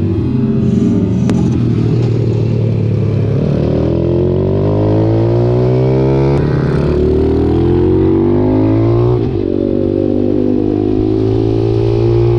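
Racing pit bike engine heard from onboard, revving higher and higher under hard acceleration. The revs drop briefly about nine seconds in, then the engine pulls up again.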